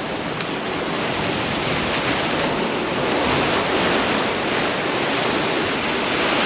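Ocean surf breaking and washing over rocks at the shoreline, a steady rush that grows a little louder.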